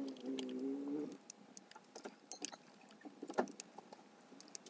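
Screwdriver turning the screws of a brush cutter's Walbro carburetor: scattered light metal clicks and taps, one sharper click about three and a half seconds in. A steady pitched drone in the background stops about a second in.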